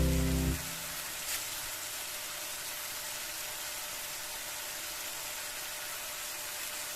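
Tilapia frying in hot oil in a pan, a steady sizzle, with one faint click about a second in. Background music cuts off about half a second in.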